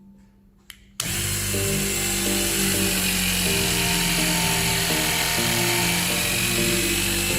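A battery-operated hydraulic cutting tool's electric motor and pump start about a second in and run steadily with a faint whine while driving the cutter through cable. Background music plays under it.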